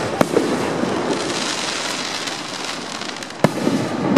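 Aerial fireworks shells bursting: two sharp bangs, one just after the start and one about three and a half seconds in, with a steady wash of noise between them.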